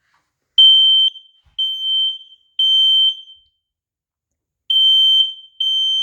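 Kidde smoke alarm sounding its shrill piezo horn in the temporal-three evacuation pattern: three half-second beeps, a pause, then the next set of beeps begins. It starts about half a second in.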